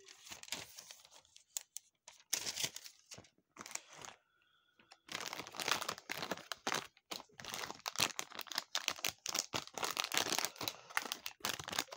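Plastic gashapon blind bags crinkling and rustling as they are handled and shuffled by hand, in scattered bursts at first, pausing briefly, then crinkling almost continuously for the second half.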